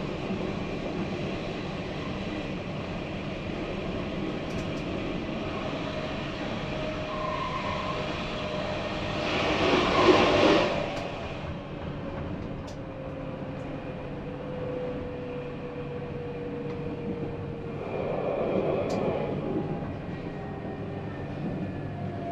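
Tram running on its rails: a steady rumble with an electric motor whine that falls slowly in pitch. About ten seconds in, a loud rush of noise swells and fades, and near the end a second whine starts to rise.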